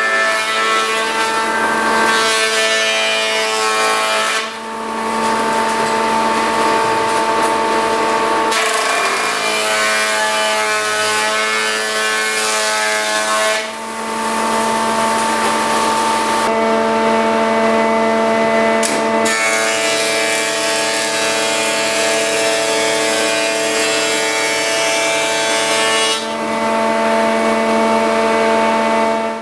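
A stationary woodworking machine runs steadily with a whine while wood is fed through it in several passes. The noisy cutting sound swells and drops away between passes.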